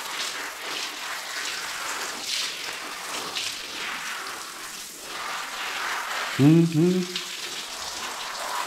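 Water streaming and splashing onto a wet Labrador's coat and the tiled floor as the shampoo is rinsed out, a steady hiss. A short voice sound cuts in about six and a half seconds in.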